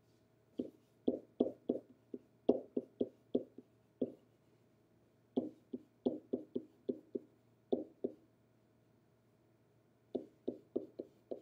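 Pen tip tapping and knocking against a whiteboard surface as chemical symbols are written, in three runs of quick, sharp taps with short pauses between them.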